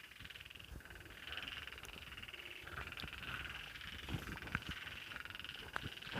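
A chorus of frogs calling at night, overlapping bouts of fast, pulsed croaks that come and go every second or two. Scattered low knocks are heard underneath.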